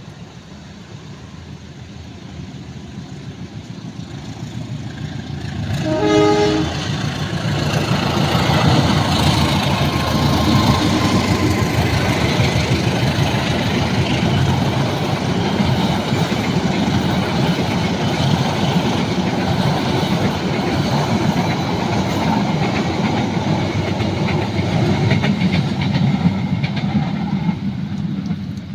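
Train approaching and sounding a short horn blast about six seconds in, then passing close by with loud, steady engine and wheel noise that drops away near the end.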